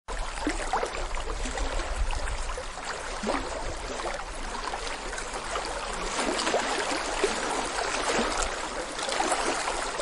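Small waterfall splashing into a rocky pool: a steady rush of falling water with many small bubbly gurgles and splashes over it.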